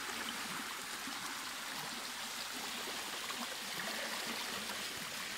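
Shallow creek water running over a smooth rock slab in small cascades: a steady rushing.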